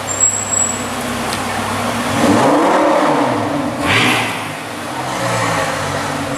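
Supercar engine revving as the car accelerates, its pitch rising and falling about two seconds in and rising again near four seconds.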